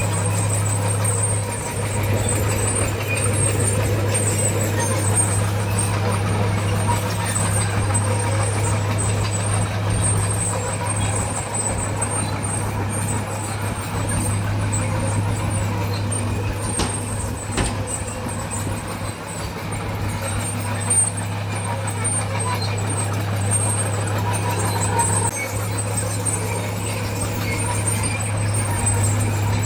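Heavy diesel earthmoving machinery running steadily, with a constant low engine drone and a thin high whine over it.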